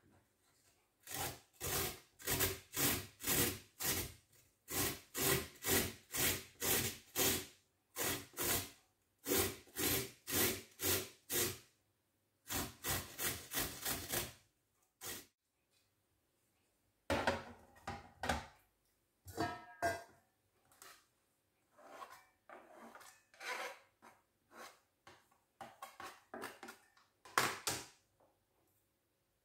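Hand-held box grater shredding raw pumpkin on a plastic cutting board: rhythmic rasping strokes, about two to three a second, for roughly the first fourteen seconds. After a short pause come scattered scrapes and knocks.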